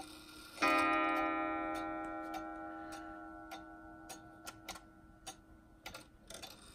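Junghans pendulum wall clock striking its gong once, about half a second in, the note ringing on and slowly dying away over the steady tick of the movement. A single strike with the hands just moved to the half hour is the clock's half-hour strike.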